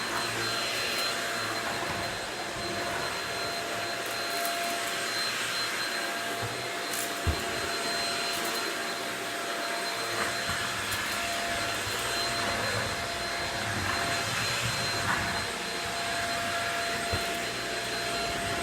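Shark Rocket corded vacuum running steadily with a constant whine, with a few small knocks, the sharpest about seven seconds in.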